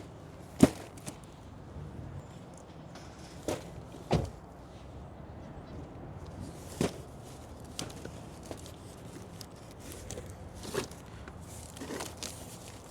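A few irregular knocks and thumps, the loudest about half a second in, with softer ones spread through the rest.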